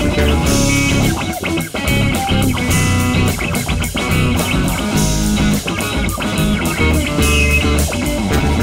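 Live band of electric guitar, electric bass and drum kit playing an instrumental rock-jazz number, with the guitar leading over a steady bass line and recurring cymbal crashes.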